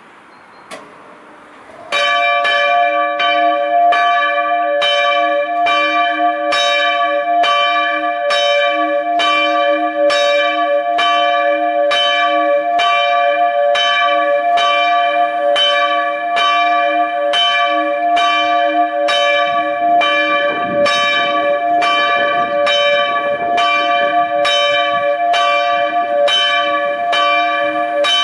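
A single bronze church bell cast by Rincker, strike note d'', swinging and ringing with a steady stroke a little over once a second, starting about two seconds in. Before it starts, only wind noise is heard.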